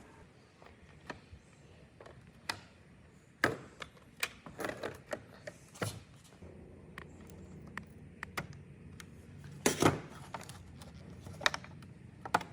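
About a dozen sharp clicks and knocks at irregular intervals, the loudest about ten seconds in, from hard plastic parts and small tools being handled while the Neabot Q11 robot vacuum is taken apart.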